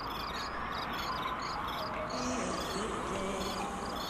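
Crickets chirping in a regular rhythm, about three chirps a second, over a steady hiss, with a few faint gliding tones lower down.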